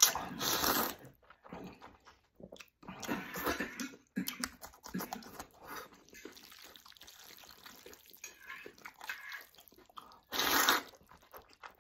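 A man loudly slurping thick zhajiang noodles off chopsticks, each pull a noisy rush about a second long: one at the start, one around three seconds in and one near the end. Between the slurps come wet chewing and lip-smacking.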